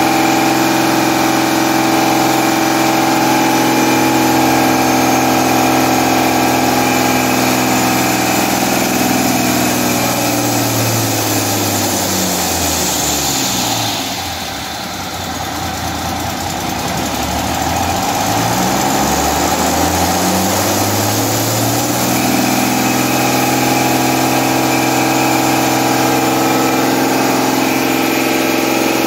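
Mercedes-Benz OM366 turbo-diesel straight-six running on an engine dynamometer, steady at high revs. About ten seconds in, its speed sinks away and the sound drops lower and a little quieter, then it climbs back over several seconds and holds steady again.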